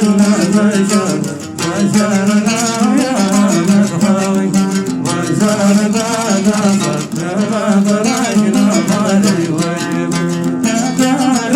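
Hadrami dan song: a sung melody with a plucked string instrument accompanying, running continuously.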